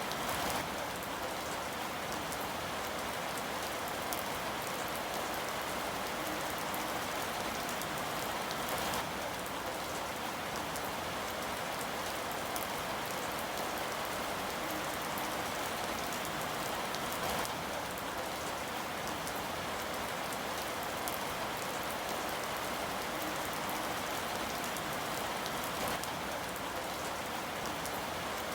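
Steady rain falling on a surface, an even hiss with scattered individual drops.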